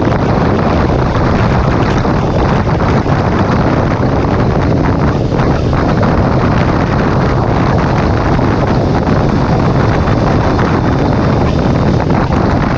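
Steady, loud rush of wind buffeting the microphone on a sport motorcycle riding at road speed, with the bike's running noise underneath.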